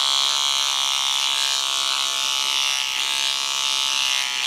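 Electric beard trimmer buzzing steadily as it cuts through beard hair on the cheek and jaw.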